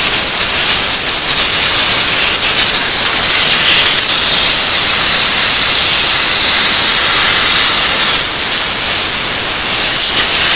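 Compressed-air spray gun hissing loudly and steadily, without a break, as it blasts a rear drum brake assembly clean.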